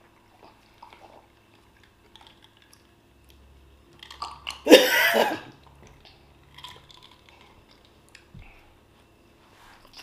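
Quiet chewing and eating noises by hand, with one loud cough about halfway through.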